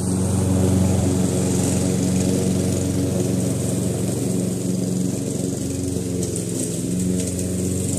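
Lawnmower engine running steadily, with a high hiss above its hum.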